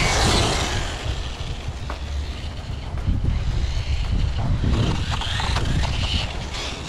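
Losi Mini LMT 1/18-scale RC monster truck driving on asphalt: its 25-turn 380 electric motor and tyres rush loudly close past at first, fading as it drives off, then the motor's pitch rises and falls with the throttle about five seconds in. Wind buffets the microphone throughout.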